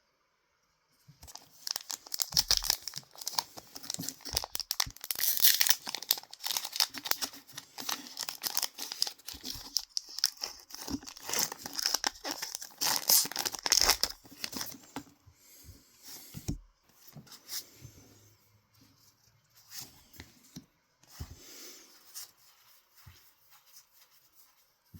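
A Pokémon card booster pack's foil wrapper being torn open and crinkled, dense and crackly for the first fifteen seconds or so. Then quieter, scattered rustling as the pack and cards are handled.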